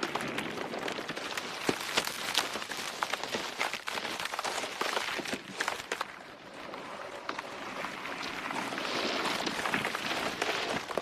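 Designed sound effect of a monster plant growing: a dense crackle of snaps, clicks and rustling. It thins briefly about six seconds in, then swells again into a brighter hissing rustle toward the end.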